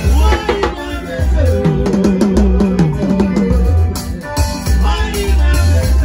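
Live band music through a PA: a drum kit keeps a steady beat with heavy low thumps and cymbal strokes, and a man sings a melodic phrase into a microphone through the middle.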